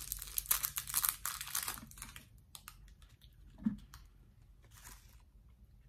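Crinkling and tearing of a Russell Stover sugar-free chocolate's wrapper as it is unwrapped by hand. The crackling is dense for about two seconds, then thins to scattered crackles that die away about five seconds in.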